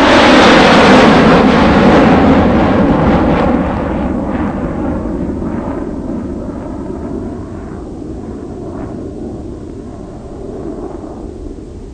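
Loud rushing rumble that peaks about a second in and then slowly dies away over about ten seconds, its hiss fading before the low rumble does.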